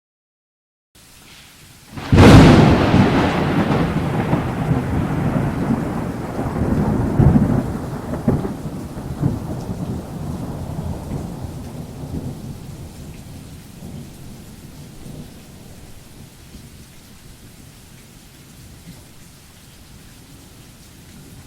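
Thunderstorm sound effect: a sudden thunderclap about two seconds in, then a long rumble that slowly dies away, with further rolls around seven and eight seconds, over steady rain.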